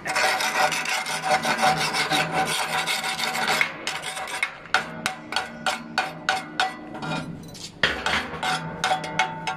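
A flat steel bar scraped along the edge of a torch-cut steel plate, stripping off the cutting slag with a dense, rapid rasping and clicking. The scraping thins out to scattered clicks around the middle, then picks up again near the end.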